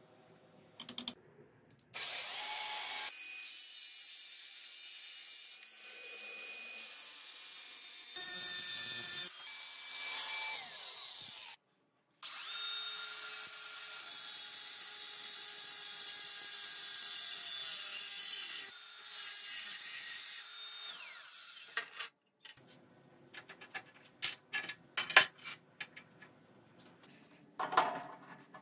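Greenworks cordless angle grinder with a cutting disc running and cutting through a thin steel rod, in two long stretches of steady whine and grinding with a short break between. After it stops, a run of sharp metal clicks and knocks as parts are handled.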